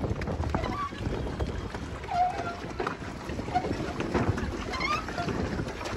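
Wind buffeting the microphone over water sloshing and lapping around a pedal-powered water-cycle boat on choppy water.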